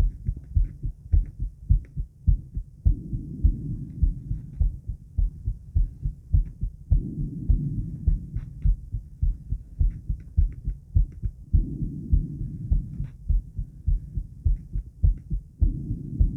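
A woman's heartbeat, close-miked: a steady run of low, regular thumps. A softer rushing sound swells and fades about every four seconds.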